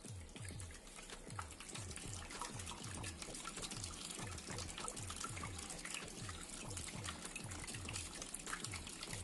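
Water trickling and splashing steadily down a small handmade tabletop waterfall fountain, kept running by a mini submersible pump.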